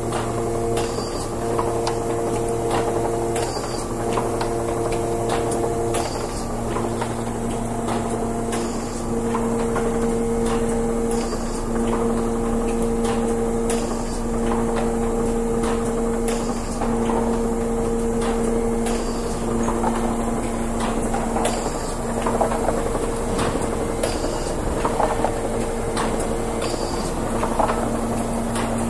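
Redington Model 9V vertical cartoner running, loading cartons on its chain conveyor. A steady machine hum carries several pitched tones that drop in and out, over repeated mechanical clicks and knocks.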